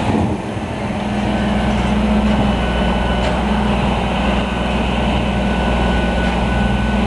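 Refuse truck's diesel engine running steadily, a deep continuous hum with a faint steady high whine above it.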